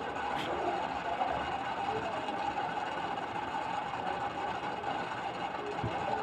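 Steady mechanical hum: a constant mid-pitched tone over an even hiss, with a faint tick about half a second in.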